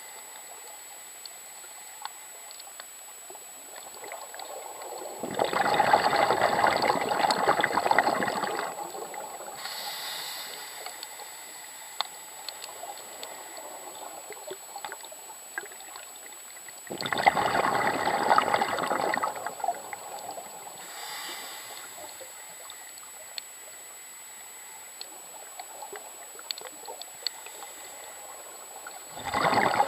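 Scuba diver's exhaled breath bubbling out of the regulator underwater. It comes in bursts of two to three seconds about every twelve seconds: two full bursts, and a third starting near the end. Between the bursts faint scattered clicks come through the water.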